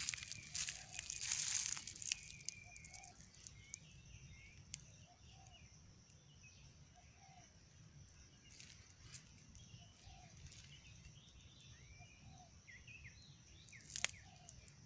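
Spotted dove cooing, a short low coo repeated every second or two, over chirps of small birds and a steady high insect buzz. Rustling at the start, and one sharp click near the end.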